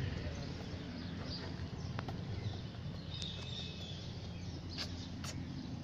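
Steady low outdoor rumble with a few faint high chirps and several short sharp clicks, the loudest about two seconds in and near the end.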